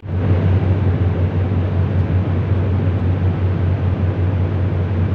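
Airliner cabin noise in flight: a steady rush of engine and airflow over a strong low hum.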